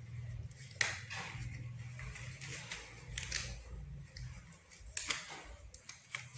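Light clicks and knocks of small medical equipment being handled and set out, three sharper clicks standing out, over a steady low hum.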